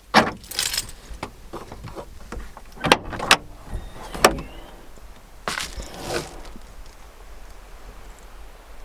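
Rustling, clicks and several sharp clunks as someone climbs out of bed in the back of a dual cab ute, moving bedding and opening the tray's door or hatch. The sharpest knocks come about three and four seconds in, followed by a longer swish about five and a half seconds in, then it goes quieter.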